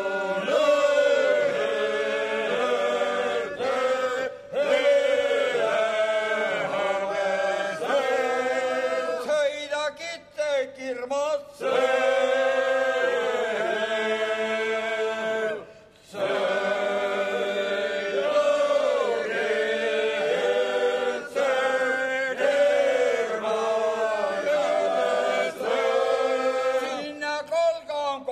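Male Seto leelo choir singing unaccompanied polyphonic chant, in phrases with brief pauses between them.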